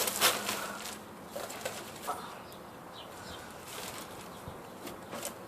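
A few sharp metallic clicks and clatter from a socket wrench and extension working the oil drain bolt on a Honda CR85R's engine, loudest in the first half second, then faint scattered ticks.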